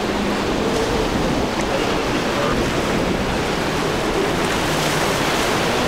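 Surf and wind buffeting the microphone, with the low drone of a center-console boat's outboard motors and the rush of its spray as it runs through the chop.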